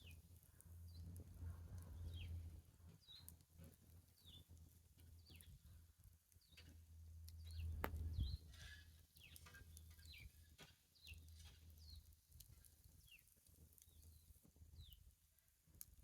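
Short, high chirps falling in pitch, repeated about once a second, most likely a bird calling, over faint scattered crackles and pops from a wood fire, with one sharper pop about eight seconds in.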